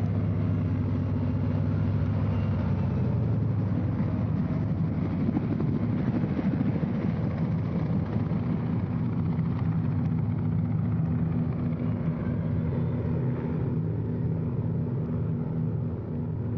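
Helicopter engine and rotor running steadily as it flies low past, a continuous low hum with a noisy wash, easing a little near the end.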